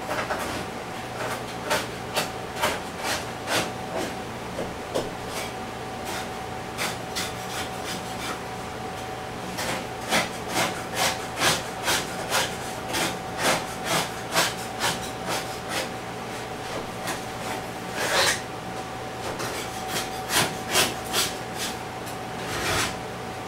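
Repeated short rubbing strokes, about two or three a second, coming in runs over a steady electrical hum.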